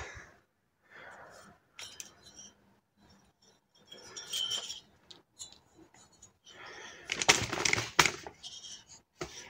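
Scattered light metallic clinks and handling knocks as the removed chainsaw cylinder and other engine parts are picked up and turned over on the bench, with a louder stretch of handling noise about seven seconds in.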